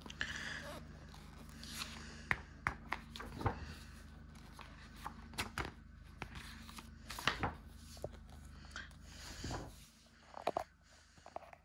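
Pages of a large art book being turned and handled by hand: short paper swishes and rustles with scattered taps and clicks, over a steady low hum that stops near the end.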